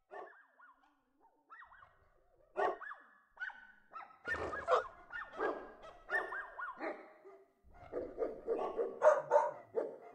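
Dogs barking: a few separate barks at first, then almost continuous barking from about four seconds in.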